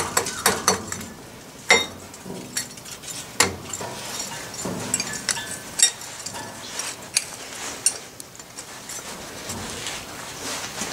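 Pliers clinking and knocking against a freshly poured, still-hot metal handwheel casting as it is worked loose and lifted out of the sand mold: a string of irregular sharp clinks.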